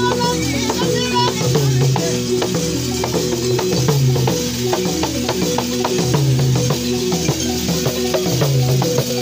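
Live dance music: a low pitched instrument repeats a short stepped melodic figure over and over, over quick drum and rattle strokes.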